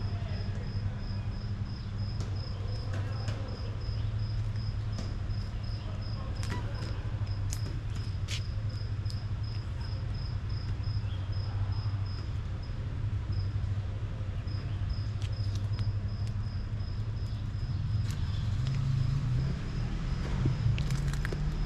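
Cricket chirping steadily, about three chirps a second, with a short break midway. Under it runs a steady low traffic hum that grows louder near the end.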